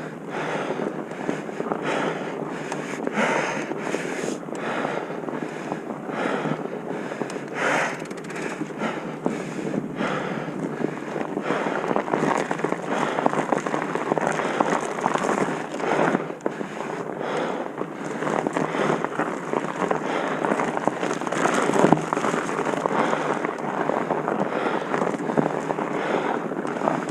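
Continuous wind buffeting on the microphone, mixed with irregular crackling, rattling and knocking that goes on throughout.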